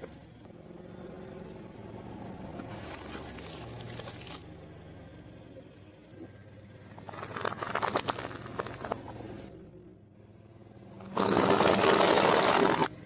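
Car tyre rolling slowly over objects on concrete and crushing them: a low rumble at first, crackling and snapping midway, then the loudest part near the end, a dense crunch lasting over a second as the tyre flattens a pile of crunchy orange puffed snacks.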